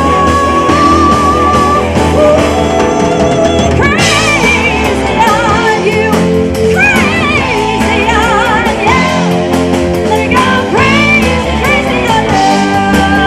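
Live rock band playing: a woman sings with vibrato over a drum kit and electric guitar. The vocal comes in about four seconds in, after held instrumental notes.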